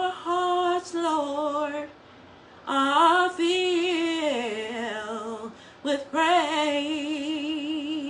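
A woman singing a slow worship song unaccompanied, in three phrases with a short pause about two seconds in. The second phrase falls in pitch, and the last is a long held note with a wide vibrato.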